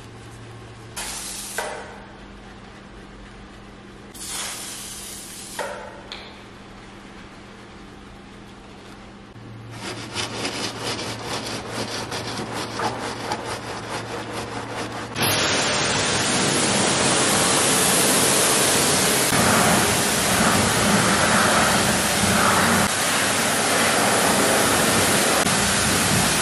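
A brush and a wash mitt scrubbing a soapy alloy wheel and tyre in short rubbing strokes, then a pressure washer spraying the wheel: a sudden loud, steady hiss of water starting about fifteen seconds in and lasting to the end.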